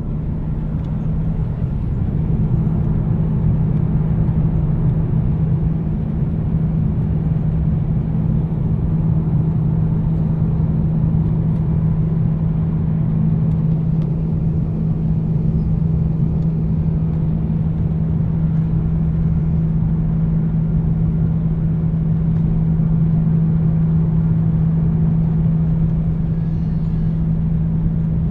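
Jet airliner's engines running at steady low power as it taxis, heard inside the passenger cabin: a constant hum with one steady low tone over a rumble.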